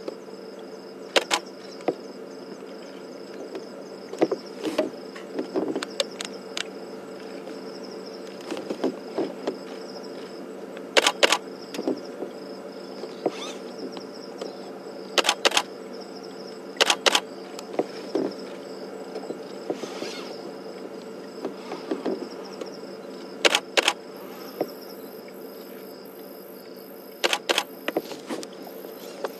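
Crickets trilling steadily over a low steady hum, broken every few seconds by short sharp clicks, several coming in quick pairs or threes.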